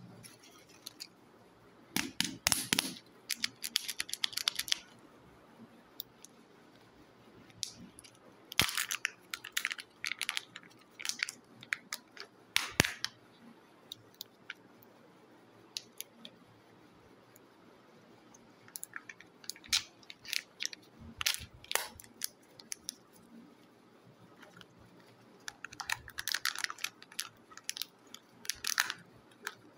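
Plastic Kinder Joy surprise eggs being handled and opened: spells of crinkling and clicking as the plastic shell is pulled apart and the thin seal is peeled off the treat half, with quiet gaps between spells.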